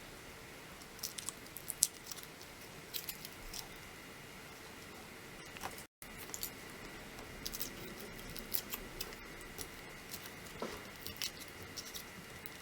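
Faint, scattered crinkling and crackling of a Kinder Surprise egg's foil wrapper as it is peeled off, in short bursts of small clicks with pauses between.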